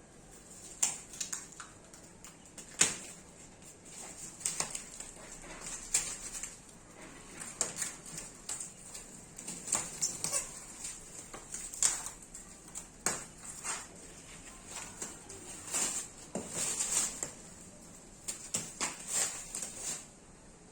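Packaging being handled and pulled off: irregular rustling and crinkling with scattered sharper clicks and knocks.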